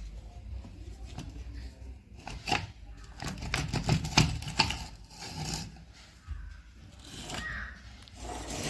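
Irregular small clicks, light knocks and scraping as parts of a rotary hammer drill, opened up by removing its four nuts, are handled; the clicks are thickest in the middle.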